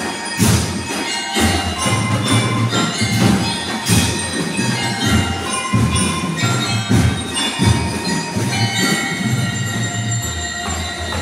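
Drum and lyre corps playing: metal bell lyres ring out a melody over a steady beat of marching snare and bass drums.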